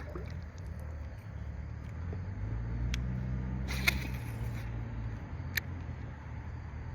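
A steady low motor drone, with a few sharp clicks and a brief hiss about four seconds in.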